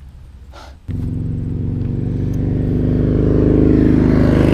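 A motor vehicle's engine running close by, coming in suddenly about a second in and growing louder toward the end.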